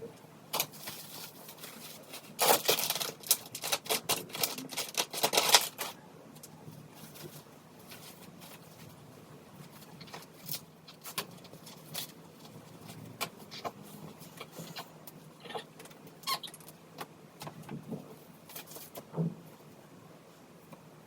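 Light household handling noises: a quick run of rapid clattering clicks lasting about three seconds, then scattered single clicks and taps.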